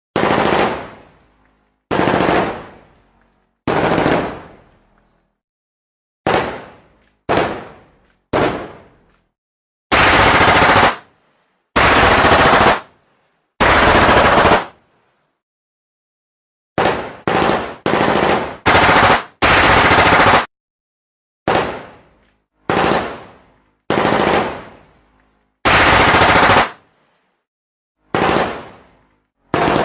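A string of separate gunfire sound effects with dead silence between them: single shots that ring out and fade over about a second, alternating with short held bursts of automatic fire about a second long.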